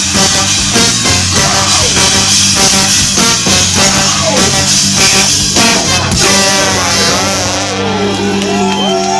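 Live punk-ska rock band playing loudly with drums. About six seconds in, the beat stops and the band holds a ringing final chord, with sliding notes over it near the end as the song winds down.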